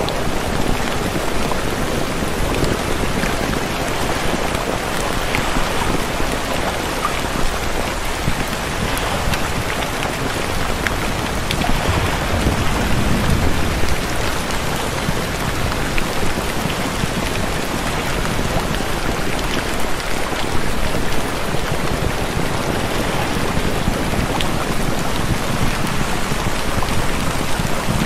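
Steady recorded rain, an even hiss of falling drops with faint scattered patters, swelling a little in the low end about halfway through.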